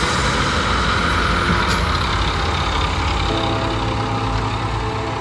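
Massey Ferguson 1035 DI tractor's three-cylinder diesel engine running steadily under load while it pulls a rotary tiller through a muddy paddy field. The sound eases slightly towards the end as the tractor moves away.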